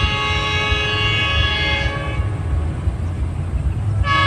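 Diesel locomotive's multi-note air horn blowing a long blast that stops about two seconds in, over a steady low rumble of the passing train; the horn sounds again just before the end.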